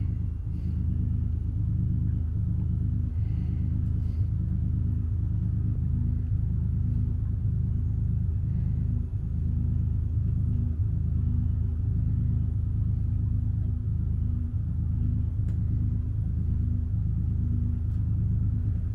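A steady low engine drone, running evenly with a faint regular pulse a little more than once a second.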